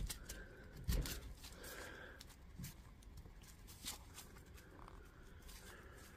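Light clicks and knocks of 18650 lithium-ion cells being handled and pushed into place in the battery pack, the strongest knock about a second in.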